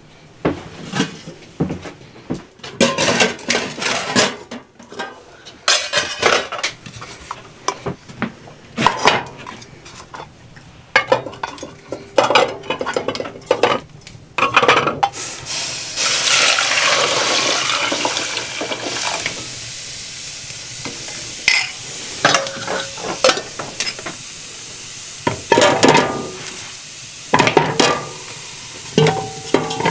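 Aluminium pots clanking and whole eggs knocking as they are set into a pot, a run of uneven knocks and taps. About halfway through, a steady rushing hiss runs for around five seconds before the knocking returns.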